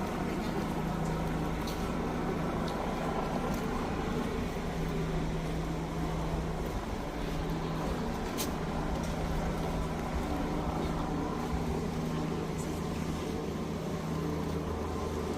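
Motor vehicle engine running with a steady low hum and rumble, with a few sharp clicks, the clearest about eight seconds in.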